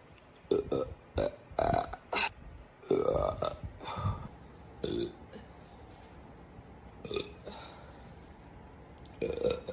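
A woman burping over and over: a quick run of short belches in the first few seconds, a few longer ones among them, then a pause and a couple more later.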